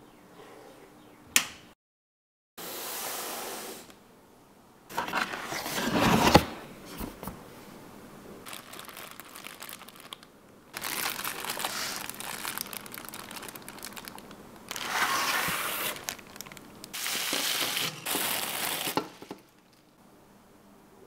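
Handling noises from assembling a gaming PC: crinkling, rustling and scraping of parts and packaging in several separate bursts, with a sharp click about a second in.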